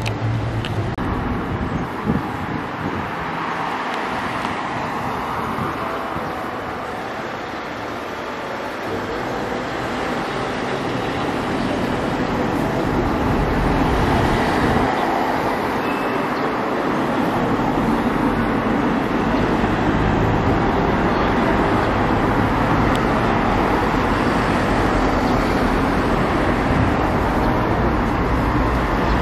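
Steady road traffic: cars driving past on a wide road, tyres and engines, swelling as vehicles go by.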